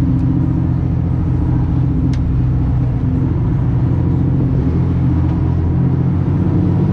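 Fishing boat's engine running with a steady low drone. A single short click about two seconds in.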